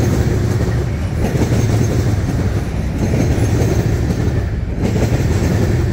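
Freight train of covered grain hopper cars rolling past, with a steady low rumble and steel wheels clacking over the rail joints as the last cars go by.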